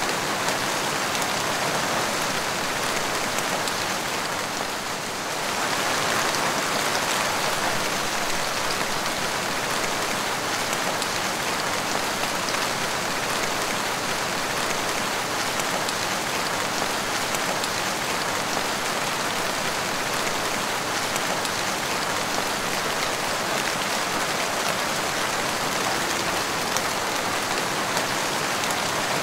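Rain falling steadily and splashing on a wet tiled porch floor, a dense, even patter that eases slightly for a moment about five seconds in.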